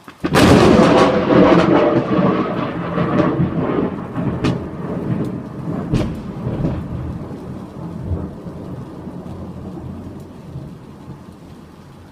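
A very loud, close crack of thunder just after the start, going over into a rumble with a couple of further claps about four and six seconds in, then slowly dying away over about ten seconds, with steady rain falling underneath.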